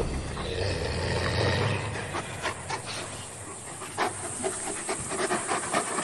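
Wolves fighting in a pack squabble: snarling and panting, with a run of short, sharp yelps and snaps from about two seconds in.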